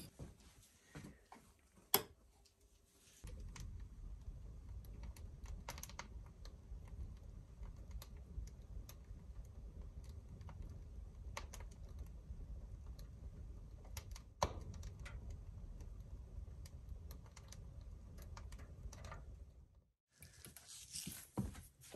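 Wood fire burning inside a Napoleon cast-iron wood stove: scattered crackles and pops over a steady low rumble, which starts about three seconds in and cuts off near the end. Before it, a single sharp click about two seconds in.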